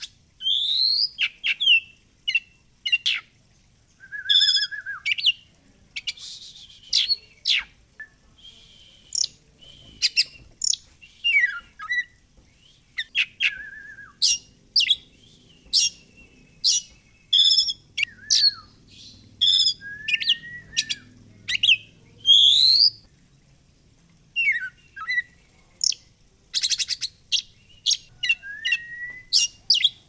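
Oriental magpie-robin (kacer) in full song: a long run of varied phrases of sharp whistles, rising and falling slurred notes and short buzzy rattles, broken by brief pauses.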